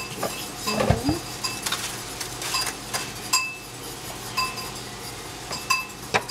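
Light metallic clinks of cookware on the stove, repeating irregularly about once or twice a second, each with a short ring, with a duller thud about a second in. A steady low hum runs underneath.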